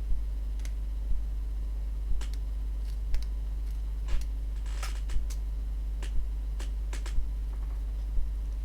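Light clicks and taps of a Nokia phone's plastic shell and parts being worked by hand, a bit less than one a second, as its snap-in clips are pried and pressed. A steady low hum runs underneath.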